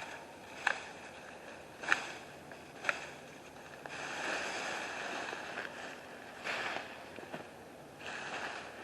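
Branches snapping and brush rustling: three sharp snaps in the first three seconds, then longer rustling of branches and leaves.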